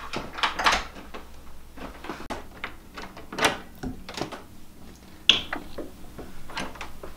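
A key scraping and clicking in a door lock, a run of small clicks and rattles, with one sharp click a little after five seconds in as the lock gives and the door opens.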